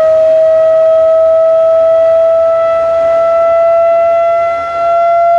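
A sine-wave test tone from the speaker of a propane flame box, held loud and steady and rising slowly in pitch as part of a slow frequency sweep, with fainter overtones above it. The sweep is passing one of the box's resonant frequencies, the point at which the flames form a pattern.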